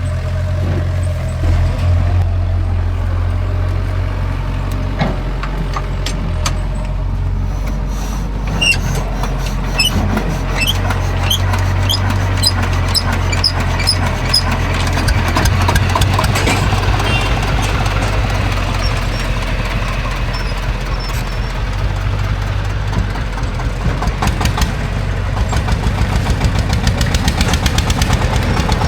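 Heavy diesel engine of earth-moving machinery running steadily, with a fast, even knock that grows louder near the end. A string of short high chirps comes about a third of the way in.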